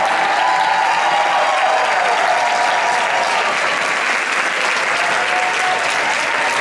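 Audience applauding steadily for a dance team's bow, with a few long whoops and cheers over the clapping.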